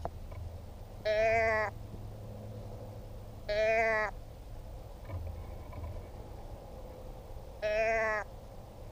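Deer bleat call blown three times, each a short, steady-pitched nasal bleat of the same length and pitch, a few seconds apart.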